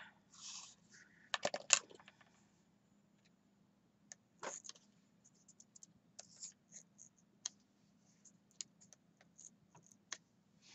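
Scattered small clicks and taps with a little paper rustle from hand tools being handled on craft paper during pattern-making. A quick cluster of clicks about one and a half seconds in is the loudest part.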